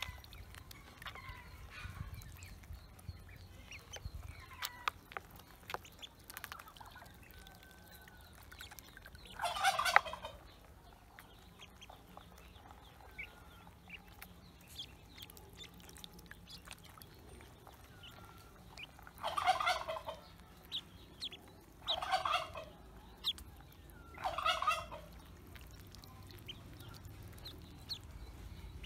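Pekin ducklings peeping softly as they paddle in a basin of water, with small splashy clicks. Four loud, rapid rattling calls from a larger fowl stand out over them, one about a third of the way in and three close together past the middle.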